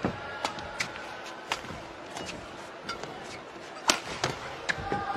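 Badminton rally: a series of sharp racket-on-shuttlecock hits, the loudest about four seconds in, with shoes squeaking on the court floor.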